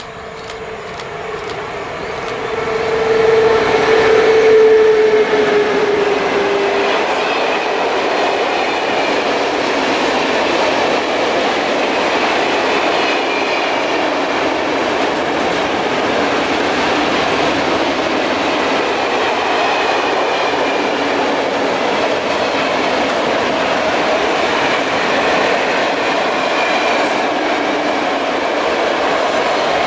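Freight train passing at speed: an electric locomotive's steady whine dips slightly in pitch as it goes by about five seconds in, followed by the steady rolling noise of a long string of loaded open freight wagons' wheels on the rails.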